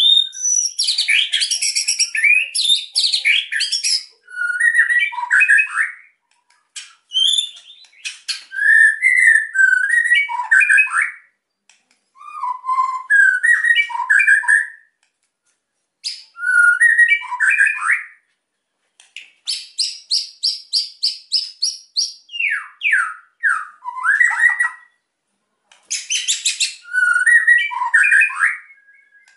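White-rumped shama (murai batu) singing loudly in the agitated 'gacor emosi' style, with varied whistled phrases mixed with harsh rattling 'kretekan' notes. The song comes in bouts a few seconds long with short pauses between them, and a fast run of evenly repeated notes comes about two-thirds of the way through.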